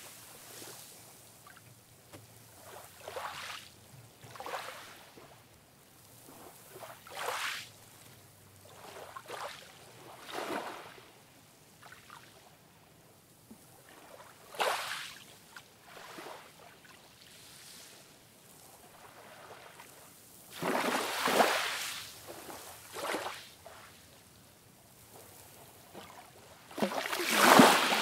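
Small ocean waves breaking and washing up a sandy beach: a soft hiss of surf that swells and fades every few seconds. The largest washes come about three-quarters of the way through and again near the end.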